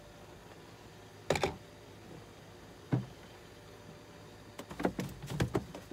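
Handling noises on a small fishing boat: one sharp knock about a second in, a lighter click near three seconds, then a quick run of clicks and taps near the end.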